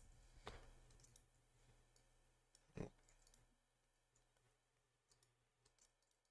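Near silence: faint room tone with two soft computer clicks, one about half a second in and a slightly louder one nearly three seconds in.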